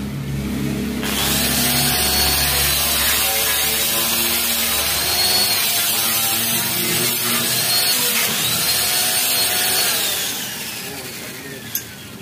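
Angle grinder with a wire cup brush scouring rust off a car's steel front frame, a harsh scrubbing noise with a motor whine that dips and rises in pitch. It starts about a second in, and about ten seconds in the brush comes off and the whine winds down in pitch, followed by a light click near the end.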